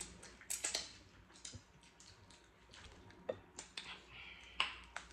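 Irregular small clicks and crackles of snow crab leg shells being cracked and picked apart while eating, with a sharper click a little after four and a half seconds in.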